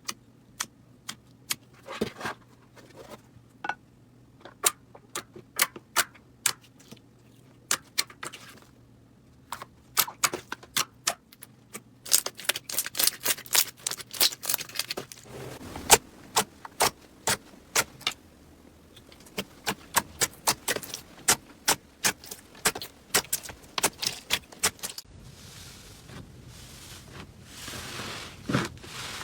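Slime being worked by hand, giving a long run of sharp, irregular clicks and pops that come thicker in the second half, with a soft rustling near the end.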